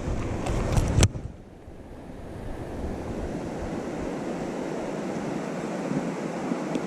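Handling bumps against the microphone, ending in a sharp click about a second in. Then comes a steady rushing hiss that slowly grows louder.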